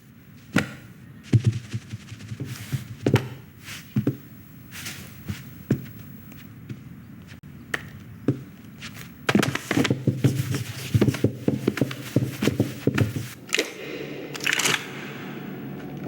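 Film sound effects without dialogue or music: a string of soft thunks, taps and rustles, with a denser run of quick knocks and clatter starting about nine seconds in.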